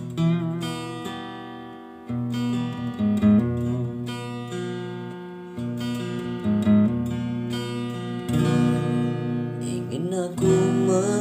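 Background music: acoustic guitar strumming and picking the introduction of a slow pop song, with a singing voice coming in near the end.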